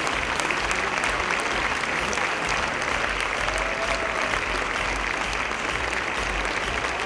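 Theatre audience and cast applauding, a dense, steady clapping during the curtain-call bows.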